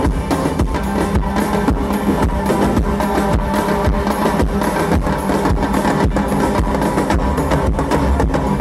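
Live synth-pop band playing an instrumental stretch of a song, with a steady drum-kit beat of kick and snare under sustained synth and bass, heard loud through a festival PA.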